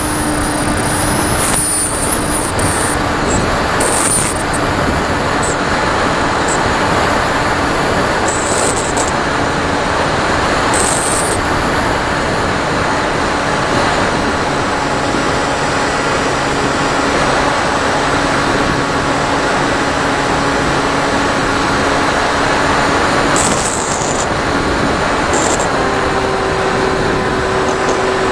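Onboard sound of an FPV model plane in flight: a steady rush of air over the camera microphone with a constant electric-motor and propeller hum. Near the end the hum steps up to a higher pitch as the throttle is opened.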